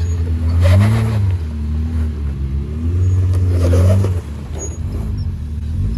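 Jeep Wrangler Rubicon engine revving up and down as it crawls up a dirt rut, with two stronger bursts of throttle, about a second in and again around three to four seconds in.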